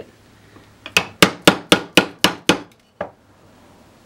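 Dead blow hammer tapping a thin hardened carbon-steel knife blade against a concave wooden block: a quick, even run of about eight taps, about four a second, each with a short ring. The taps are straightening a slight warp left in the blade by hardening.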